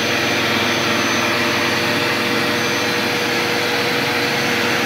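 Ridgid R4510 portable table saw running steadily, its blade ripping a laminate flooring plank.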